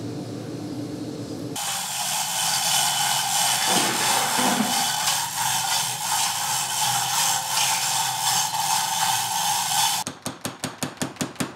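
A low steady hum, then the loud rushing, crackling noise of a blown charcoal forge fire throwing sparks. About ten seconds in, a mechanical power hammer starts striking hot steel in a fast even rhythm, about five blows a second.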